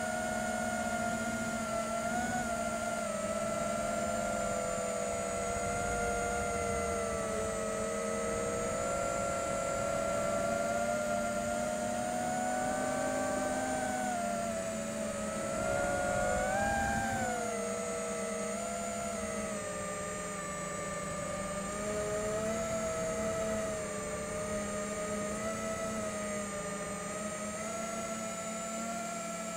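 FPV quadcopter's brushless motors and propellers whining, picked up by the drone's onboard DJI Air Unit recorder: several steady tones that drift up and down in pitch with throttle, rising briefly just past halfway.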